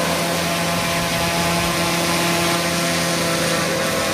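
Homemade hovercraft's small gas engines running steadily at high speed: a backpack leaf blower giving lift and a weed-whacker engine spinning an airplane propeller, a loud, even engine-and-propeller noise with a steady hum.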